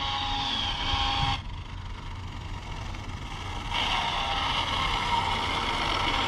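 Dual-motor electric RC speed car running: a high, steady whine from its electric motors with wind and tyre rush. The whine cuts off abruptly about a second and a half in, and the rushing noise swells again about four seconds in.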